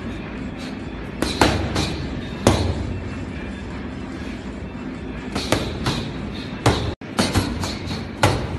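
Boxing gloves striking focus mitts: sharp smacks in short combinations, a pair, then single hits, then a quick run of about five near the end.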